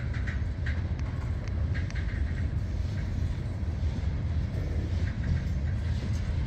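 Freight train's covered hopper cars rolling past, a steady low rumble of steel wheels on the rails, with a few short squeals in the first two seconds.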